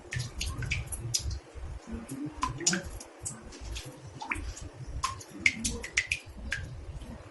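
Water drops falling into a bathtub: an irregular run of sharp plinks, several a second, many with a short pitched ring, over a steady low rumble.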